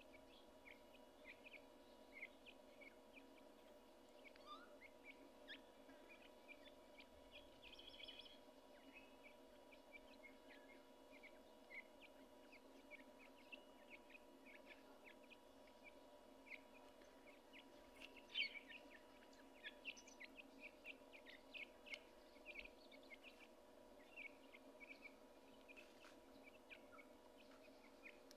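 Francolin chicks cheeping faintly: many short, high peeps scattered irregularly, with a steady faint hum underneath.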